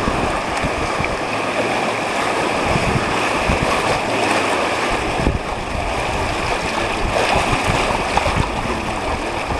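River water rushing steadily around a whitewater raft on the Deschutes River.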